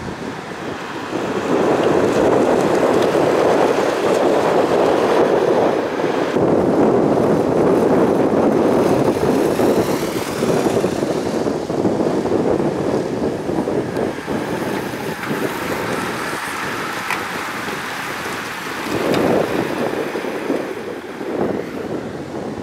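Wind buffeting the microphone in gusts, heaviest through the first half and swelling again near the end, as a bunch of road-race cyclists rides past.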